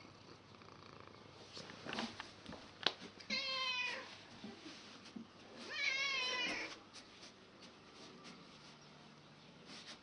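Domestic cat meowing twice, two drawn-out calls with a wavering pitch about two seconds apart, the second one longer. A few sharp taps come just before the first call.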